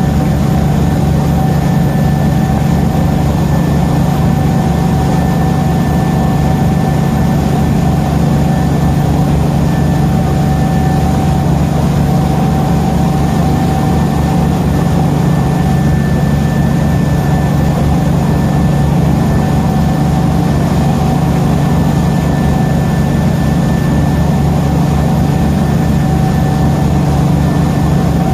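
Ferry boat's engine running at a steady cruising speed, a loud low drone with a faint constant whine over it, mixed with water rushing and splashing along the hull.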